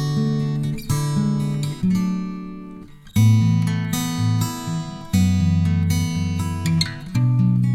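Background music on acoustic guitar, plucked chords. Around three seconds in, one chord dies away and a louder one is struck.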